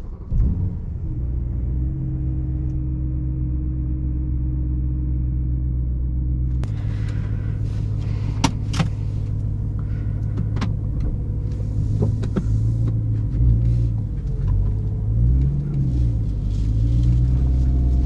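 BMW E92 M3's naturally aspirated 4.0-litre V8 starting up with a brief flare, then settling into a steady idle. A sharp click comes about eight seconds in. From about thirteen seconds on, the engine note rises and falls a few times as the car pulls away.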